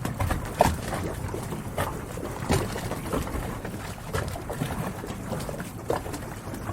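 Harbor ambience: water sloshing and lapping around moored boats, with a low rumble and many scattered small knocks and clicks at irregular intervals.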